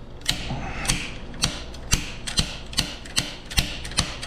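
Slide hammer mounted on a Vise-Grip locking plier being worked: a steady run of sharp metal knocks, about two a second, each ringing briefly. It is slowly pulling a stuck part out of an engine block.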